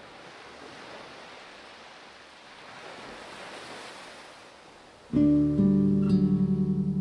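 Ocean waves washing in soft, rising and falling swells, then about five seconds in a classical guitar in drop D tuning enters loudly with a ringing chord and quickly repeated plucked notes over the waves.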